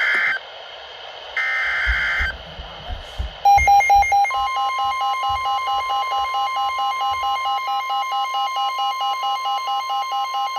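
Emergency Alert System activation on NOAA Weather Radio. It opens with the screeching digital SAME header bursts: one ends just as it starts, and another lasts about a second. After a short gap, a loud rapid beeping alarm starts at about three beeps a second, and the steady single-pitch weather radio warning alarm tone comes in under it.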